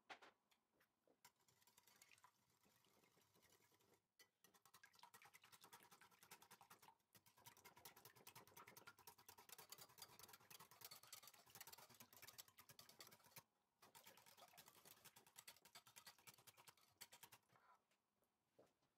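Wire balloon whisk beating a runny egg, milk and yogurt mixture in a glass bowl: a faint, fast ticking and sloshing of the wires against the glass. There are short breaks about four, seven and thirteen seconds in, and it stops shortly before the end.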